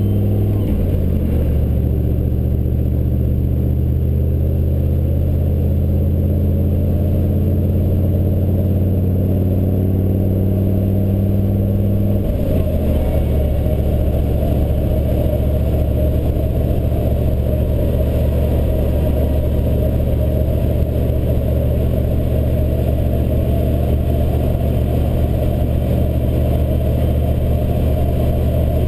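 1983 Chevy C30 pickup's 6.2-litre diesel V8 running at road speed, heard from inside the cab. The engine note steps down in pitch about a second in and again about halfway through, then stays steady.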